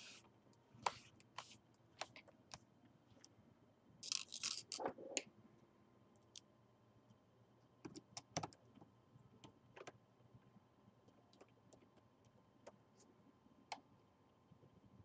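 Faint, scattered clicks and ticks of a small screwdriver and plastic parts while a laptop's screen assembly is worked on at the hinge. A short burst of scraping and rattling comes about four seconds in.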